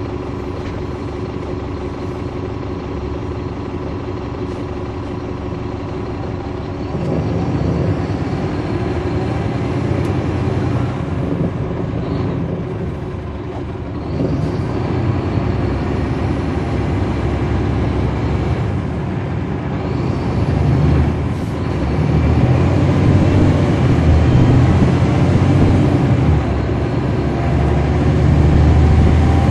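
Caterpillar C13 diesel engine of a NABI transit bus, heard from on board, idling steadily, then about seven seconds in getting louder and deeper as the bus pulls away and accelerates, with brief dips in level before it climbs again.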